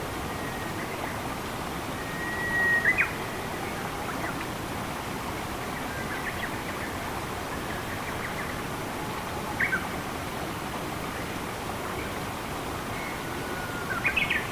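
Steady rushing of running water with birds calling over it. A drawn-out whistle ends in sharp chirps about three seconds in, a short chirp comes near the middle, and a whistle and chirps come near the end.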